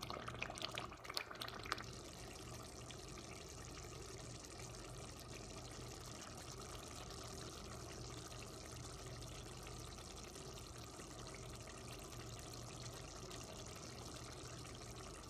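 Tomato sauce with peppers simmering and sizzling in a pan on the stove: a steady hiss, with a few clinks of a utensil in the first couple of seconds.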